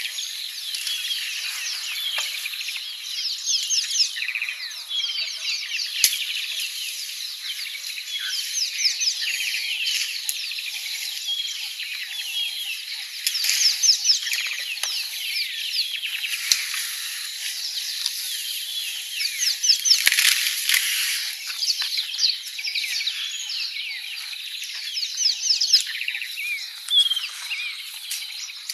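Dense chorus of many small birds chirping and twittering without pause, short quick high notes overlapping one another.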